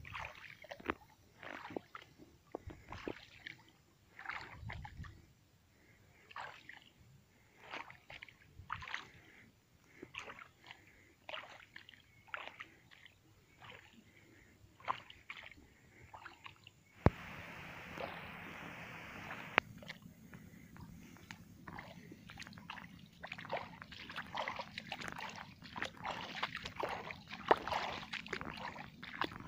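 Shallow water sloshing and splashing in short, irregular bursts, about one a second. Past the halfway mark the sound cuts abruptly to a steady hiss for a couple of seconds, then the splashing resumes.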